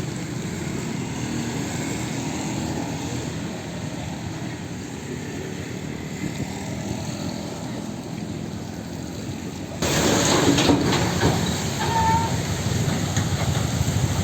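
Steady rumble of vehicle traffic. About ten seconds in, the sound changes abruptly to a louder, noisier mix with scattered clicks and knocks.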